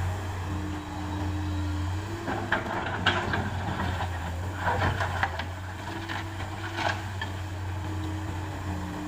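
Heavy diesel engine of construction machinery running steadily, with a series of sharp clanks and scraping knocks between about two and seven seconds in, typical of an excavator bucket working broken material.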